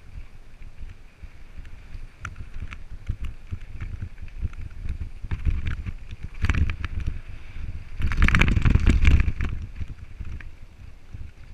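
Mountain bike rolling down a dirt singletrack: tyres crunching over dirt and small rocks, the bike rattling with sharp clicks, and wind buffeting the microphone. The clatter grows loudest over rougher ground about eight to nine seconds in.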